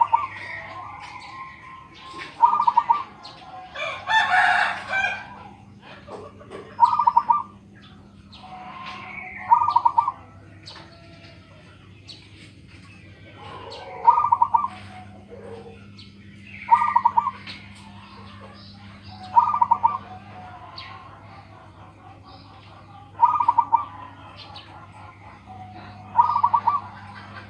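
Zebra dove (perkutut) cooing over and over, a short pulsed coo every two to three seconds. About four seconds in, a longer, louder call from another bird rises above it, and a faint steady hum runs underneath.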